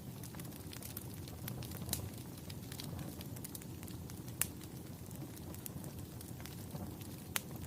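Fire crackling: a steady low rumble of burning with scattered sharp pops, the sharpest about four and a half seconds in and again near the end.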